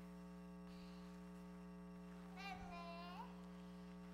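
Low, steady electrical mains hum through the church's sound system. About two and a half seconds in comes a brief, faint, high-pitched drawn-out tone.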